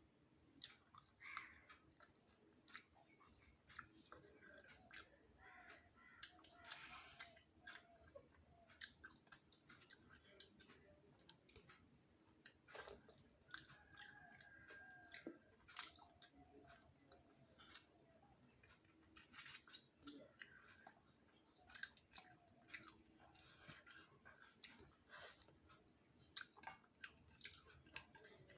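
Close-up eating sounds: wet chewing with irregular mouth smacks and soft clicks as someone eats a meal of rice, fish and crab curry.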